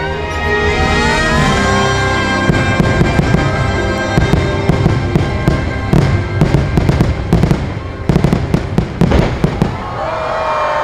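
Fireworks bursting in a rapid barrage over the show's music: the bangs start about two and a half seconds in and come thick and fast until near the end.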